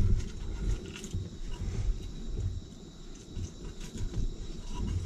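Wind buffeting the microphone outdoors: an uneven low rumble that swells and fades in gusts, with a few faint clicks.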